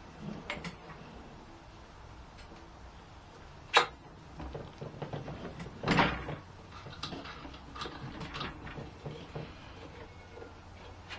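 Scattered knocks and clatter of hard parts being handled, with a sharp knock about four seconds in and a louder clunk about six seconds in.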